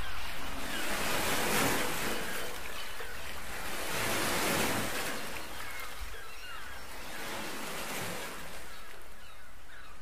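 Small waves washing up onto a sandy beach: a steady rush of surf that swells a few times and grows gradually softer.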